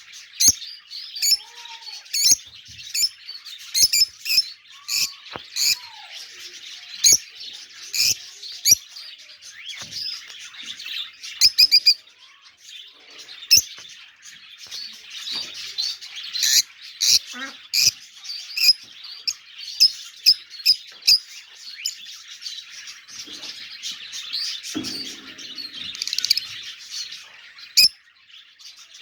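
A flock of small pet parrots chattering and chirping steadily, with many sharp high chirps over a continuous warble.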